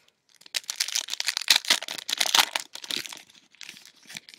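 Trading-card pack wrapper crinkling and tearing as the pack is handled and opened: a dense run of crackles from about half a second in to about three seconds, then lighter scattered crinkles.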